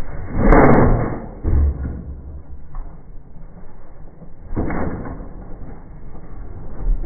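Delmag F5 explosion rammer firing twice, with a sharp bang about half a second in and another just before five seconds. A heavy low thud follows about a second after the first bang as the ram lands.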